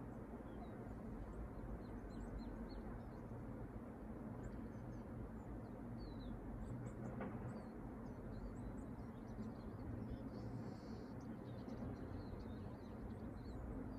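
Steady low background noise, with many short, faint high chirps of small birds scattered through it.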